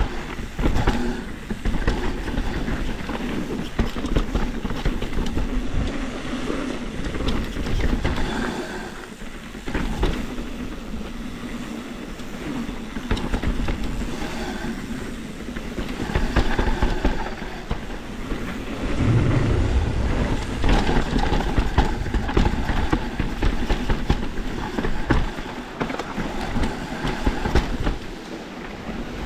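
Mountain bike riding down a rough dirt and rock trail: tyres rolling over the ground, with a steady clatter of small knocks and rattles from the bike over the bumps.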